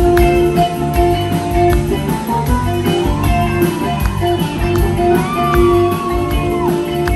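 A live rock band playing: drums keeping a steady beat under electric guitar and a singer.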